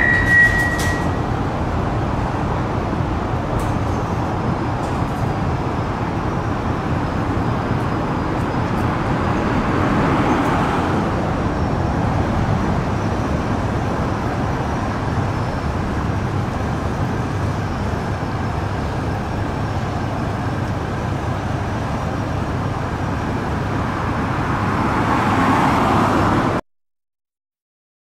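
Steady road traffic noise, swelling as vehicles pass about 10 seconds in and again near the end, then cutting off suddenly to silence.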